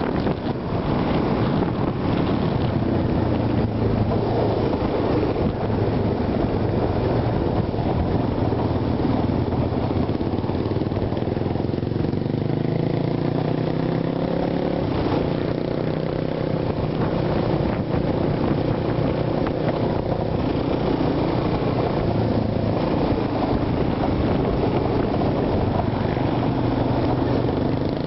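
ATV engine running while riding on a dirt track, its pitch rising and falling as the throttle opens and closes, over steady rushing noise.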